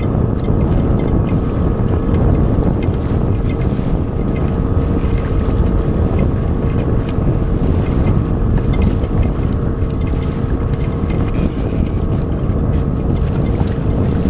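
Small outboard motor running steadily at trolling speed, with wind buffeting the microphone. A short high hiss sounds about eleven seconds in.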